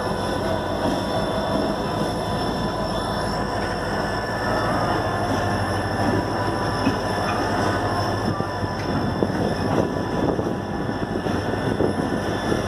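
Diesel locomotive hauling a goods train past close by, its engine running steadily under the rolling noise of wheels on rails. A thin, steady high-pitched wheel squeal rides over it, with occasional clicks from the track.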